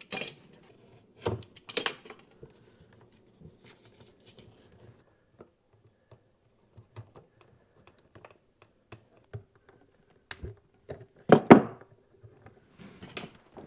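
Scattered sharp clicks and knocks of hands handling plastic electrical outlets and their wiring, with quiet gaps between them. A louder cluster of knocks comes about eleven and a half seconds in.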